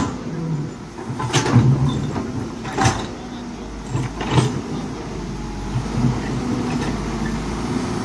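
Caterpillar hydraulic excavator running steadily as its bucket digs into and scoops wet earth. A few sharp clanks or knocks sound about every second and a half in the first half.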